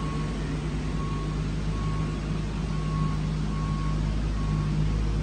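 Steady low electric machine hum, with a faint high tone that comes and goes about once a second.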